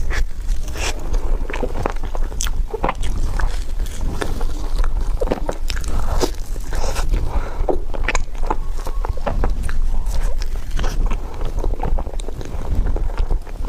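Close-up eating sounds of a tiger skin dessert being bitten and chewed: a dense, irregular run of small mouth clicks, over a steady low hum.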